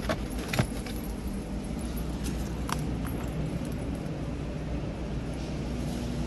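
Keys on a keyring jingle, with a few light knocks and clicks in the first second as a cardboard shoebox is handled, and one more click about three seconds in. Under this runs the steady low hum of a store.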